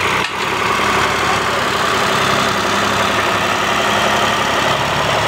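Fiat 480 tractor's three-cylinder diesel engine running steadily as the tractor climbs a mound of loose earth.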